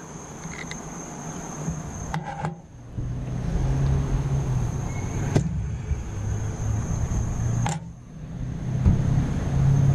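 Clothing brushing and rubbing against the camera microphone: low, uneven rumbling that muffles everything else, with three sharp knocks, over a steady high-pitched hum.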